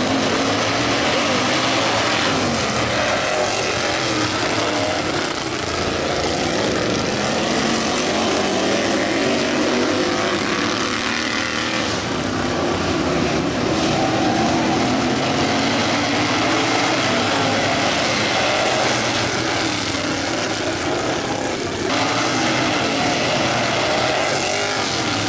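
Several racing lawn mower engines running hard together, their pitch rising and falling as they rev up and ease off.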